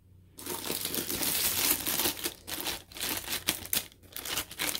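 Crinkling and rustling of a diamond painting kit's paper and plastic packaging being handled and unfolded by hand. It starts about half a second in and goes on with a few brief pauses.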